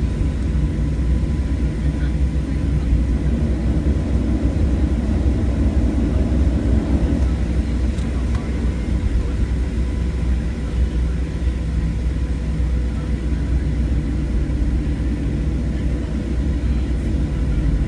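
Steady low rumble of jet engines and the airframe heard inside a Boeing 737's cabin as the airliner rolls on the ground, with a faint steady hum running through it.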